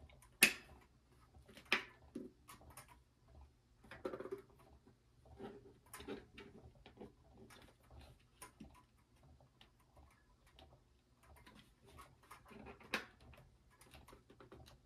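Irregular light clicks and knocks of hard plastic being handled as the battery compartment on a kinetic mobile's base is worked open; the cover is hard to get off. A few sharper clicks stand out, about half a second in and again near the end.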